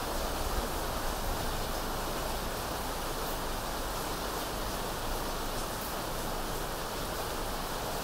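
An electric fan running together with falling rain: a steady, even hiss that does not change.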